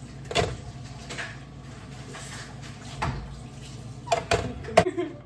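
Kitchen dishes and utensils being handled on a counter: scattered short knocks and clatters, with a quick cluster of three sharper ones near the end.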